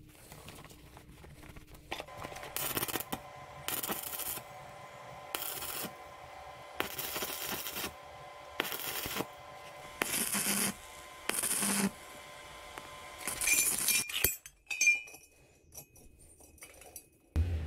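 Stick (arc) welder laying a series of short tack welds on a steel frame: about eight spells of arc crackle, each under a second, over a steady hum. Near the end come a few light metallic clinks.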